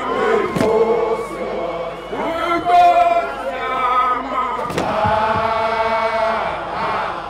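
A group of Zulu regiment members chanting together in long held, sliding phrases. A couple of sharp cracks cut through, about half a second in and near five seconds.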